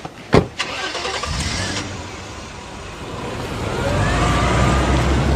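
A sharp thump, then a car engine starting and running, its low rumble swelling as the convoy vehicles pull away.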